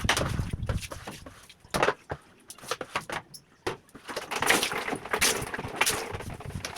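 Irregular knocks and clatters of household objects being handled, with a longer stretch of scraping or rubbing noise about two-thirds of the way through.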